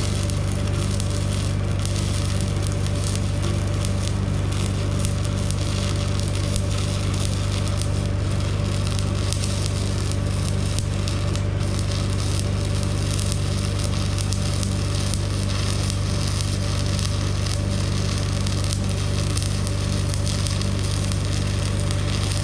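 Stick-welding arc crackling steadily while a crack in a steel backhoe dipper stick is welded, over a steady low hum from the welder. The arc cuts off at the very end.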